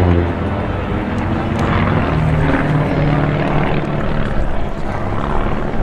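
Piston engines and propellers of two single-engine aerobatic planes flying overhead in formation, a steady drone whose pitch wavers slightly.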